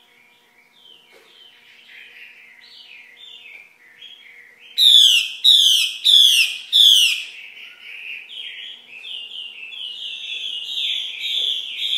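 Female Chinese hwamei (melodious laughing thrush) calling: a run of quick falling notes, faint at first. About five seconds in come four loud, harsh downslurred calls in a row, then a fast stream of shorter notes that grows steadily louder.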